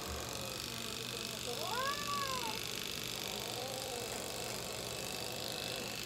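A long-haired cat gives one drawn-out meow about two seconds in, its pitch rising and then falling, followed by a fainter, lower wavering cry. Under it an electric pet clipper runs with a steady hum.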